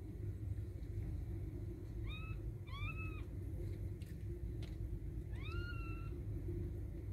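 Young kittens mewing: three thin, high mews, two quick ones about two and three seconds in and a longer one near six seconds, each rising then holding its pitch. A steady low rumble runs underneath.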